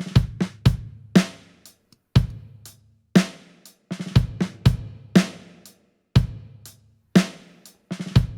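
Slow drum-kit groove through a convolution reverb built from impulse responses recorded in a cave, with the reverb turned down to a moderate blend. About one main hit a second with lighter hits between, each leaving a short decaying reverb tail.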